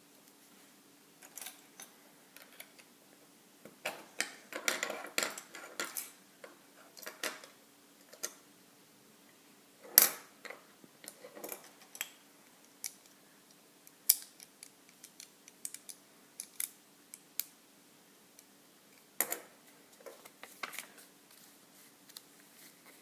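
Plastic Lego pieces clicking and clattering as they are handled and pressed together, in scattered sharp clicks with a busier spell of rattling a few seconds in and one louder snap near the middle. A faint steady hum sits underneath.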